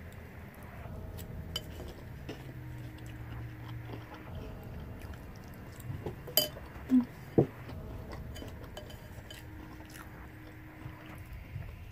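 Mouth-close chewing of crunchy French toast cereal, with a plastic spoon scraping and clicking against the bowl as more is scooped. A few sharper clicks come about six to seven and a half seconds in.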